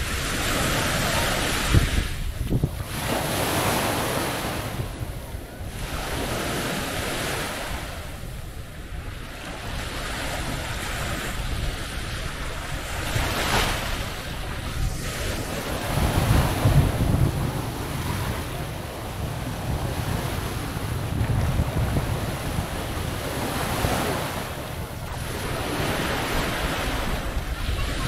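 Small waves breaking and washing up a sandy beach, the surf swelling and fading every few seconds. Wind buffets the microphone with low rumbling gusts, strongest about two-thirds of the way through.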